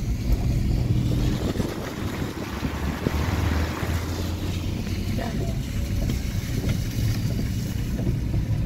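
Steady low rumble of a car moving slowly, heard from inside the cabin, with a hiss that swells briefly about three seconds in.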